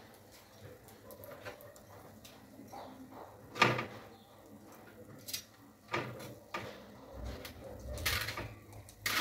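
Metal tongs clinking and scraping on a foil-lined baking tray as roasting chicken pieces are turned over, a handful of scattered clicks and knocks, the loudest about a third of the way in.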